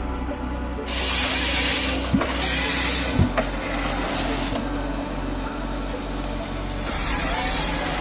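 Rottne H14 forestry harvester at work: its engine runs with a steady low hum while the harvester head processes logs, making three loud hissing bursts and two sharp knocks.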